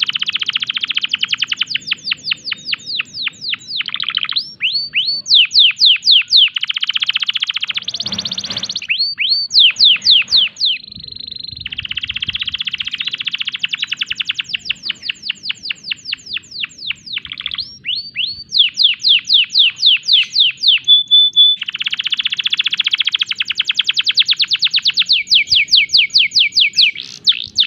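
Male domestic canary singing a long, continuous song: fast buzzy rolls alternating with runs of quick, downward-sweeping whistled notes, several a second. This is the full, persistent song of a canary in breeding condition.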